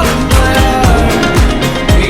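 Pop music soundtrack with a steady drum beat, about two kicks a second, under melodic lines.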